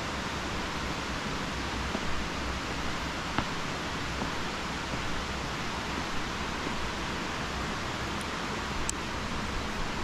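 Steady hiss of falling rain, with a couple of faint clicks.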